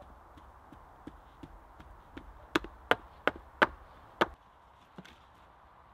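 Stones knocking against stone as small stones and clay are worked in by hand beside a large stone lining a fire pit: a few light ticks, then a run of five sharp knocks, about three a second.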